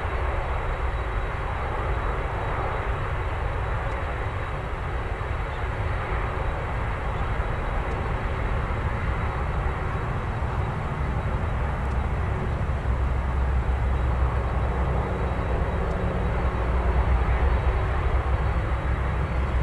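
Airbus A380-841's four Rolls-Royce Trent 970 turbofans heard from behind, a steady jet engine rumble. Its deep part grows stronger in the second half as thrust comes up for takeoff.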